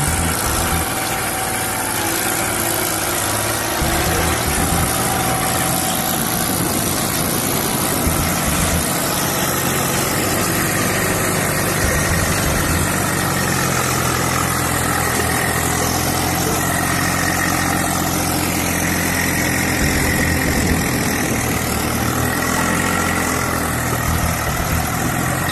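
Several farm tractors' diesel engines running together under load as they tow a loaded trolley through deep mud, a steady running note that shifts a little in pitch as they pull.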